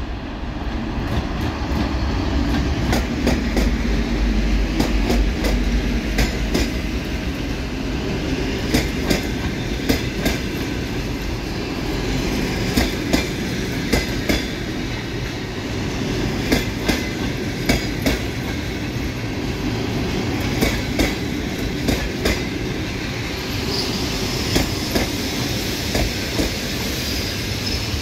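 Passenger train passing close by: the TEP70 diesel locomotive's deep engine rumble fills the first few seconds. Then the coaches roll past, their wheels clicking over the rail joints in regular pairs, with a faint high wheel squeal near the end.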